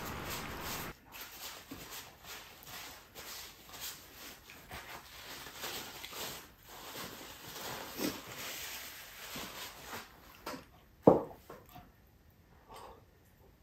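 Paper napkin rustling and crinkling as hands are wiped with it, after a steady hiss cuts off about a second in. About eleven seconds in comes one loud short slurp as a sip is taken from a small glass bowl, followed by a few faint mouth sounds.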